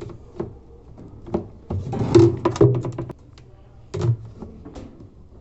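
Irregular knocks and clunks of plastic parts of an Electrolux LT09 top-loading washing machine being handled and worked loose by hand during disassembly. The sound is louder and busier from about two to three seconds in.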